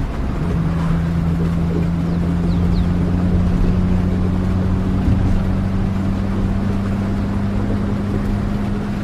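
Steady low drone of a moving vehicle's engine over a rumbling wash of noise, its hum rising slowly in pitch.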